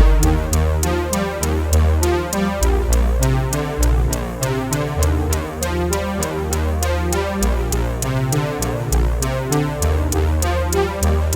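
Electronic music with a steady drum-machine beat, about four strokes a second, over synthesizer and heavy bass.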